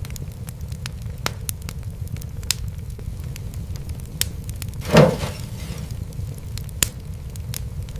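Fireplace fire crackling, with scattered sharp pops over a steady low rumble, and one louder, longer pop about five seconds in.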